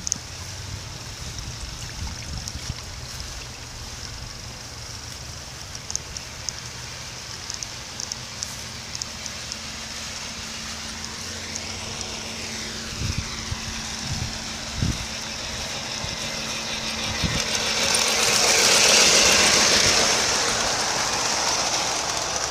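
Garden-scale model train running along outdoor track, heard from on board: a low rumble with scattered clicks of wheels over the rails. A steady hum joins in the middle, and near the end a louder rushing noise swells and fades.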